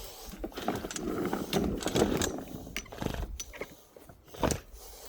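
Irregular scraping, rustling and clicking as grass clippings are cleaned off a battery lawnmower's wheels and underside, with a sharper knock about four and a half seconds in.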